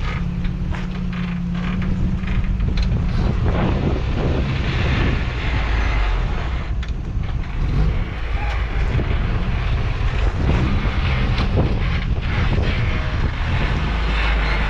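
Off-road truck engine running steadily at low revs while crawling over rocks, with scattered knocks and clunks.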